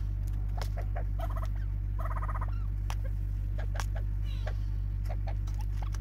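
Spurfowl feeding: many sharp ticks and taps of beaks pecking seed at a plastic feeder, with two short, rapidly pulsed cackling calls about one and two seconds in. A steady low hum runs underneath.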